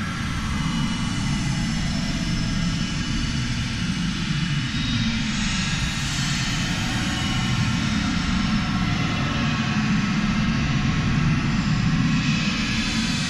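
Dark space ambient music: a steady low drone under a hissing, airy wash. The wash swells about five seconds in and again near the end.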